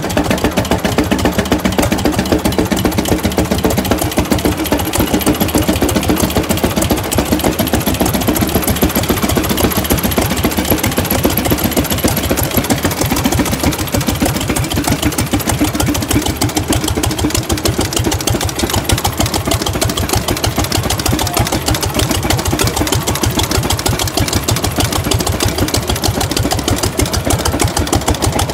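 Engine of an antique Avery tractor running steadily, with a rapid, even beat of firing strokes.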